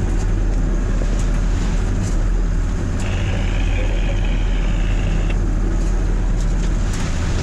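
Perkins T6.3544M six-cylinder turbo diesel running steadily under load, heard from inside the wheelhouse, with the hull working through waves and spray hitting the boat in occasional short knocks and splashes.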